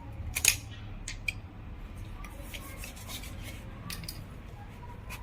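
Scattered metallic clicks and light scrapes of tools and engine parts being handled while the timing chain and its guide are fitted, the loudest click about half a second in.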